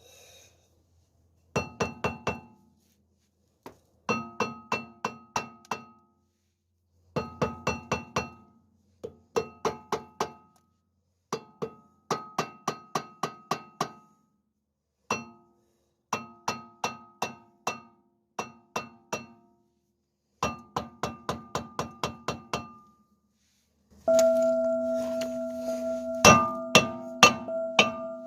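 A hammer striking metal in bursts of quick blows, each blow ringing, with short pauses between the bursts. Near the end a sustained metallic ringing is left hanging, with a few more blows.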